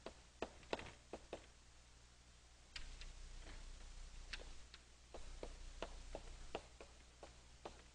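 Chalk tapping and clicking on a blackboard as words are written, in quick runs of faint sharp taps with a pause of about a second near the start.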